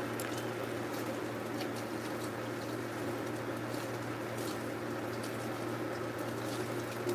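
Kitchen faucet running a steady stream into the sink while a frying pan is rinsed and scrubbed under it, with a few faint scrapes. A low steady hum sits underneath.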